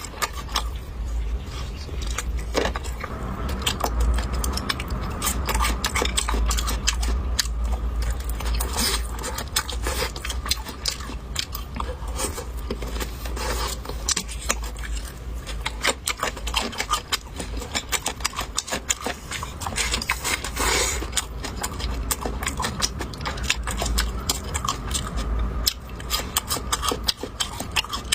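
Close-up eating sounds: someone chewing and biting into spare ribs, a dense, constant run of crunches and wet clicks, with a low steady hum underneath.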